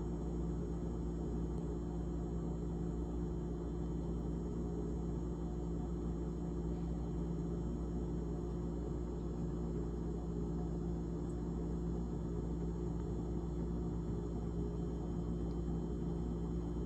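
GE GTH18XCTZRBB refrigerator running: a steady hum with several held tones over a low drone, unchanging throughout.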